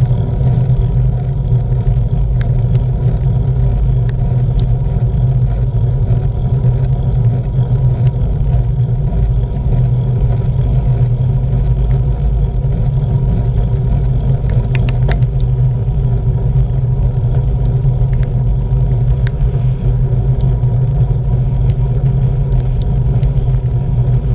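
Wind buffeting a bike-mounted action camera's microphone, over a steady low rumble of the bicycle rolling along the road, with scattered small clicks and rattles.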